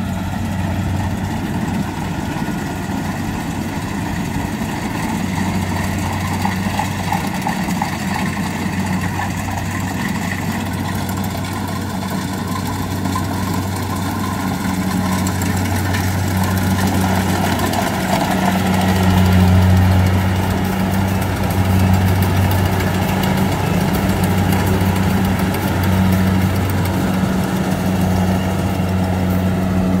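Kubota rice combine harvester's diesel engine and machinery running steadily while it cuts rice, a constant deep hum that grows louder as the machine comes close, loudest a little past halfway.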